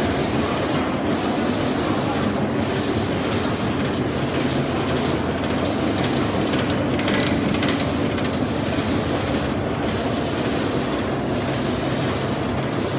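Wet wipes production machine running: a dense, steady mechanical clatter that pulses in a regular cycle about every second and a quarter. A patch of rapid clicking comes around the middle.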